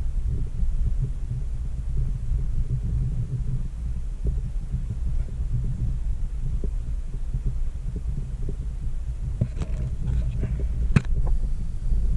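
Steady low rumble of handling and wind noise on the camera's microphone as it is moved about inside a narrow earth tunnel. From about nine and a half seconds in, a run of sharp scrapes and knocks, the loudest near eleven seconds.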